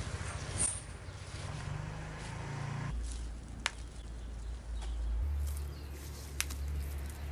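Rustling of rose foliage and a couple of small sharp snaps as gloved hands break off faded roses, over a low steady hum.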